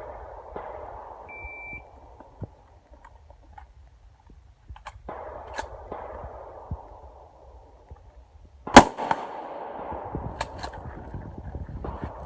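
A shot-timer beep about a second and a half in, then scattered clicks of rifle handling, then a single loud rifle shot about nine seconds in, followed by sharp clicks from the manual action.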